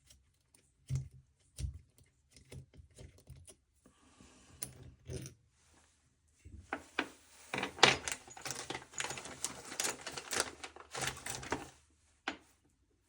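Small metal screws and parts clicking and rattling as they are handled and sorted by hand. Scattered single clicks come first, then a dense run of rattling from about halfway in until near the end.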